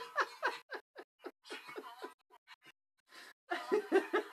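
A man laughing in short bursts. The laughter fades to a few faint breaths in the middle, then breaks out louder again near the end.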